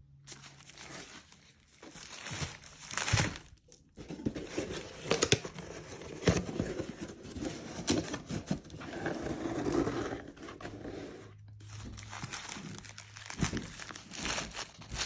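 Packaging being handled and unwrapped: irregular crinkling and rustling with sharp crackles and some tearing.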